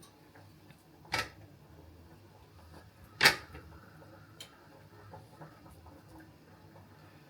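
Kitchen knife cutting plantain on a chopping board: two sharp knocks about two seconds apart, the second louder, with a few lighter clicks after.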